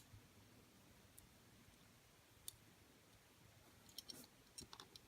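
Faint, sparse clicks of tiny die-cast toy car parts being handled as a wheel is worked onto its axle, with a quick run of small clicks near the end.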